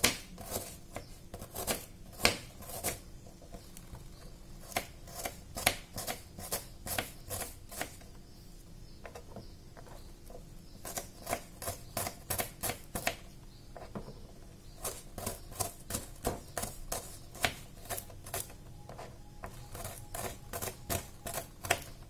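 A kitchen knife slicing shallots on a plastic cutting board: a run of sharp taps as the blade meets the board, a few per second, with short pauses between runs.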